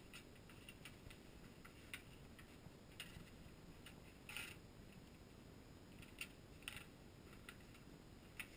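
Faint, scattered crinkles and rustles of tissue paper and gift wrapping being handled, about half a dozen short ticks spread over quiet room tone.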